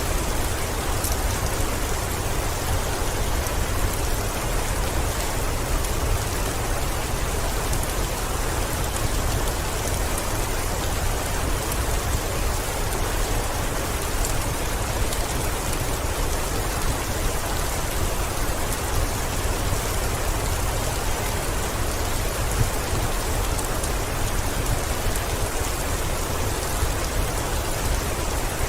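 Heavy rain beating steadily on a window, a dense even hiss over a deep low rumble, with a few faint ticks scattered through it.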